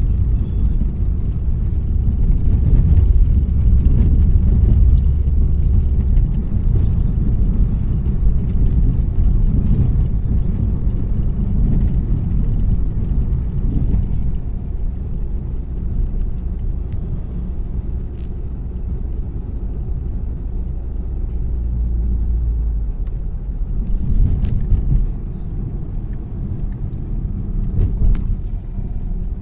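A moving car's road and engine noise heard inside the cabin: a steady low rumble, with a couple of sharp clicks near the end.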